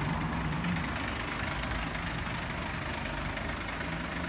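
Police van's engine idling: a steady, even low hum.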